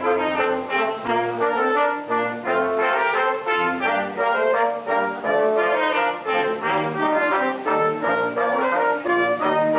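Brass quintet of trumpets, French horn, trombone and tuba playing live: a melody of short changing notes over a tuba bass line.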